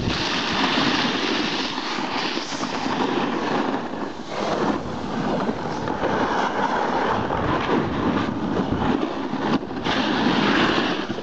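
Snowboard sliding and scraping over packed groomed snow, with wind noise on the microphone from the downhill speed; the rush swells and dips through the turns.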